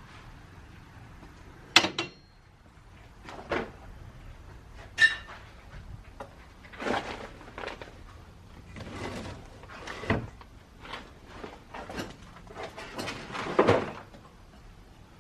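Objects being handled: a few sharp knocks and clunks in the first five seconds, then scraping and rustling with smaller knocks, the loudest stretch near the end.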